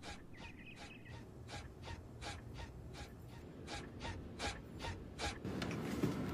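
Faint, evenly spaced ticks, a little under three a second, over a soft breathy hiss that grows louder near the end.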